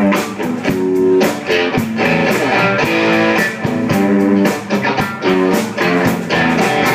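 Blues band playing, with a guitar fill of bent notes over a steady beat.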